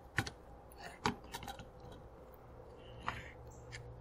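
Scattered light clicks and knocks, a cluster in the first second and a half and a few more near the end, as a Gskyer 90 mm refractor's optical tube is seated on its tripod mount and the mount's screw is tightened against the tube's rail.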